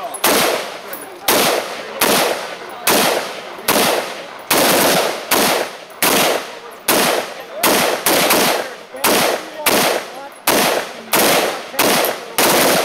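A gun fired over and over at a steady pace, roughly one shot every three-quarters of a second, each shot fading out quickly.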